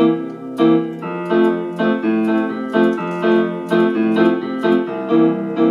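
Electronic keyboard on a string-piano sound playing accompaniment chords with bass notes, the chords struck again and again in an even rhythm of about two a second.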